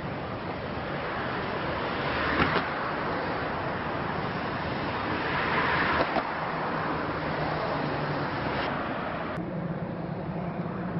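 Steady rushing engine noise from a distant twin-turboprop airliner rolling along a runway. Two short clicks sound about two and six seconds in. Near the end the sound cuts abruptly to a thinner, lower steady hum.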